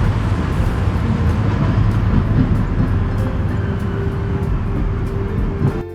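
A heavy engine running with a loud, dense low rumble that stops abruptly near the end.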